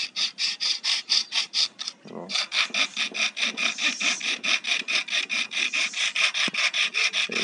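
A bare hacksaw blade worked back and forth by hand across the seam of a plastic phone-charger case, quick rasping strokes about six a second with a short break about two seconds in. It is cutting into the press-fit case to split it open.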